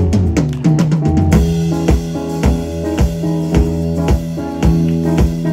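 A live band playing with a drum kit. About a second in, the full kit comes in with cymbals and a steady beat of about two hits a second.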